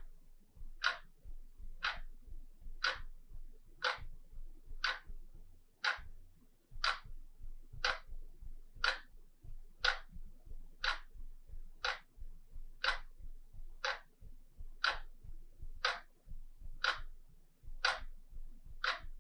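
Wall clock ticking steadily, one sharp, clean tick about every second.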